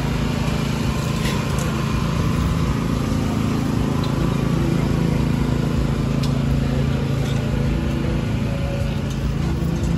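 A steady low mechanical hum, like an engine running, under the general bustle of a crowded open-air market.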